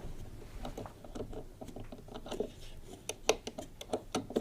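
Ratchet and spanner working the condenser fan screw loose on a tumble dryer's motor spindle: faint, irregular light clicks and taps of metal tools, with a few sharper clicks near the end.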